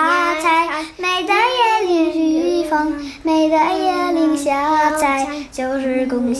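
Children singing a melody together in held, wavering notes, in short phrases with brief breaks between them.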